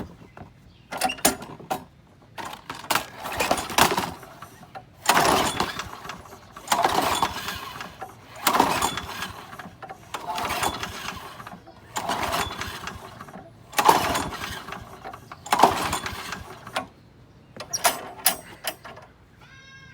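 Craftsman 6.75 hp lawnmower's recoil starter pulled about ten times in a row, one pull every second or two, the engine turning over on each pull without catching.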